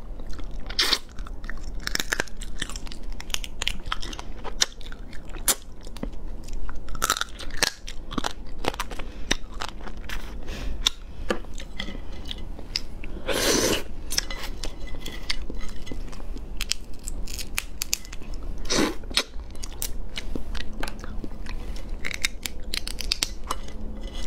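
Close-miked eating of soy-marinated raw crab: biting and crunching through shell, chewing and sucking out the meat and roe, with many small clicks and crackles and two longer sucking sounds partway through.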